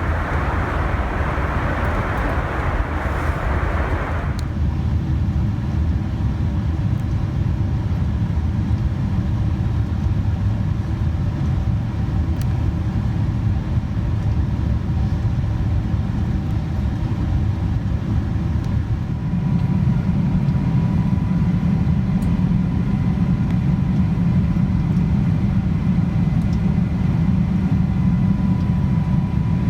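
Steady cabin noise inside a Boeing 747-400 airliner in flight: a low, even rumble of engines and airflow. A higher hiss cuts off suddenly about four seconds in. About two-thirds of the way through, the rumble grows louder and a faint steady whine joins it.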